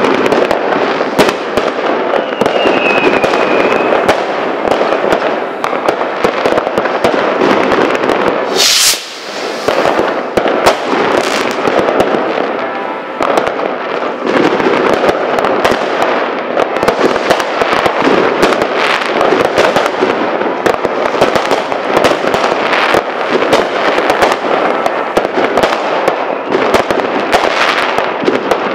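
New Year's Eve fireworks: a continuous barrage of bangs mixed with dense crackling firecrackers. A short wavering high whistle sounds about three seconds in. A sharp crack comes about nine seconds in, followed by a brief lull.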